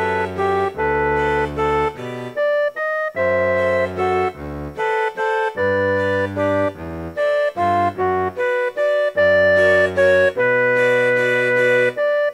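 Instrumental music on an electronic keyboard with an organ-like sound: a melody of held notes over a bass line, each note starting and stopping cleanly, with short breaks between phrases.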